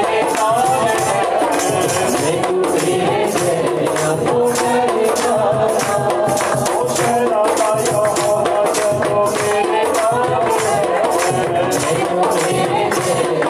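Live devotional song: congas played by hand in a steady beat, under men's voices singing through microphones and a PA.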